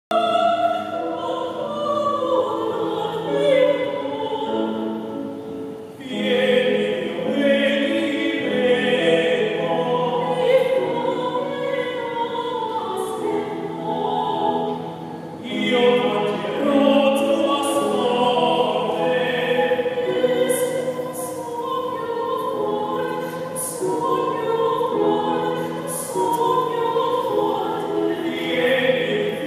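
Two classically trained singers, a woman and a man, singing an operatic duet with grand piano accompaniment, in the open space of a large cathedral. The singing runs in long phrases, with short breaks about six and fifteen seconds in.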